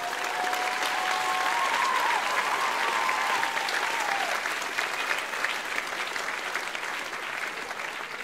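Theatre audience applauding as the song ends, with a drawn-out cheer riding over the clapping for the first four seconds. The applause slowly dies away.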